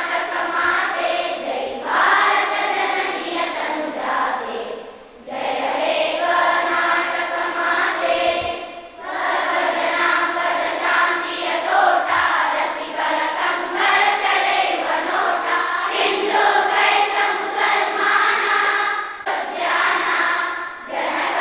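A large group of schoolchildren singing together in unison as an assembly song, in long phrases broken by short pauses about five and nine seconds in and again near the end.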